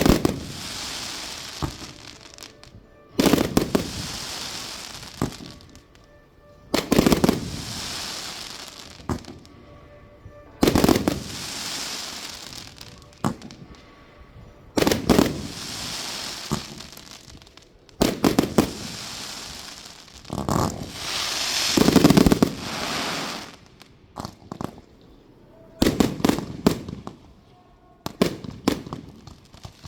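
Fireworks display: aerial shells bursting one after another, roughly every three to four seconds. Each is a sharp bang followed by crackling that dies away over a couple of seconds, with the loudest burst about two-thirds of the way through.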